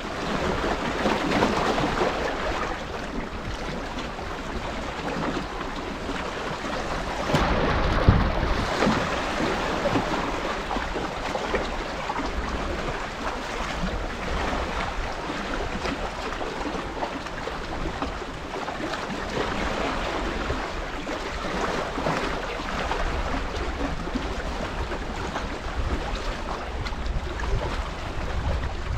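Wind buffeting the microphone over the wash of tidal water against the shore, a steady noisy rumble with a louder surge about eight seconds in.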